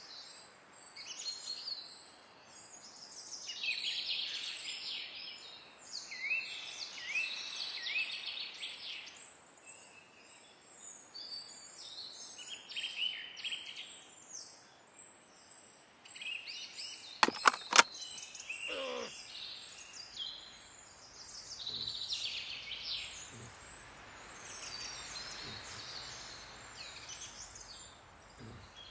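Woodland birdsong, many short chirps and trills over a soft outdoor hush. About seventeen seconds in, a quick cluster of three or four sharp clicks stands out as the loudest sound, followed by a brief downward-sliding tone.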